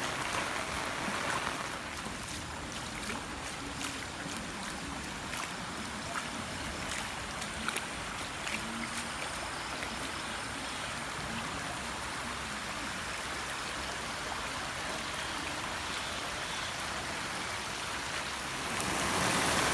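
Floodwater from an overflowing irrigation canal rushing steadily over a road, with rain falling. Scattered sharp ticks come in the first half, and the rush grows louder about a second before the end.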